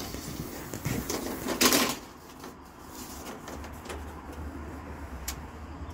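Tape measure being handled against a wooden wall panel: a few light clicks and a short scraping rattle about a second and a half in. A low steady hum comes in near the end.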